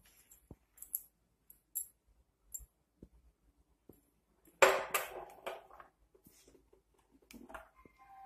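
Short, faint high clicks at a slow, uneven pace, then a loud clatter of knocks about halfway through, and a brief electronic beep of two or three tones near the end.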